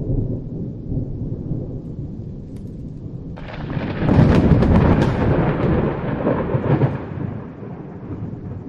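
Thunder: a low rumble, then a sharp crack about three and a half seconds in that rolls on loudly and fades over the next few seconds.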